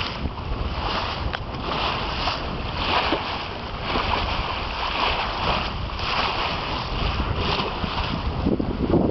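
Water rushing and splashing off the bow of a Cal 20 sailboat under sail, swelling in repeated surges about once a second, with wind rumbling on the microphone.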